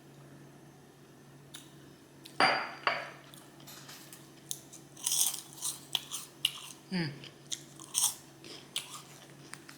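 A person biting into pizza and chewing close to the microphone: a loud bite about two and a half seconds in, then chewing with irregular crunches and mouth clicks.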